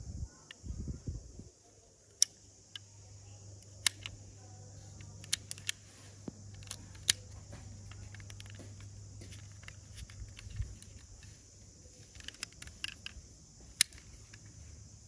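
Small sharp clicks and taps of a die-cast metal toy car being handled, its plastic and metal parts knocking under the fingers, with a few dull handling thumps near the start. A steady low hum and a faint high hiss run behind.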